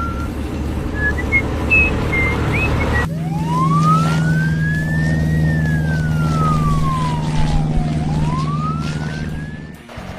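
A siren wailing slowly: it rises for about two seconds, falls for about three, then rises again, over a steady engine hum. Before the siren, for about three seconds, there are short whistled chirps over a low rumble.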